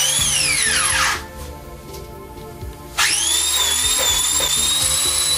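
Handheld power tool used for polishing, its motor whining at high speed, winding down and stopping about a second in, then switched back on near the three-second mark and running steadily at speed again.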